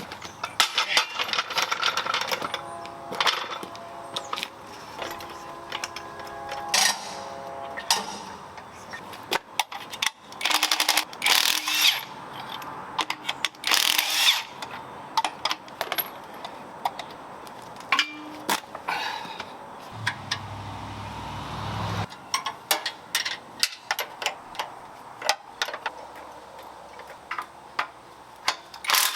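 Metal hand tools and suspension parts clinking and knocking irregularly, with some metallic ringing. About two-thirds of the way through, a low steady buzz runs for about two seconds.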